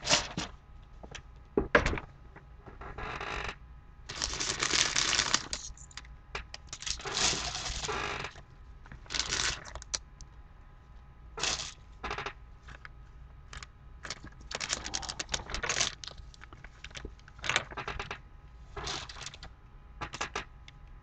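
Trading-card pack wrappers crinkling and rustling in repeated bursts as they are gathered and pushed aside, with light clicks and taps between them.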